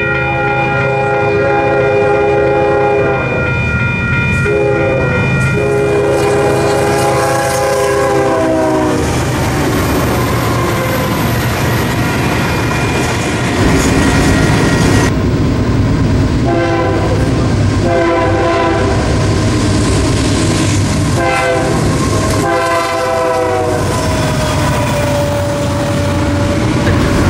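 Train horn sounding long blasts of a multi-note chord, which slides down in pitch at the end, followed by the loud rumble and wheel noise of a train passing. After a cut, another train horn sounds four shorter blasts and then one long one over the rolling wheels.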